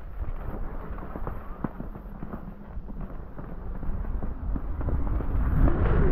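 Irregular crunching and clicking of skis or boots moving over thin, crusty snow, over a low rumble of wind on the microphone. The rumble and rushing noise grow louder from about five seconds in.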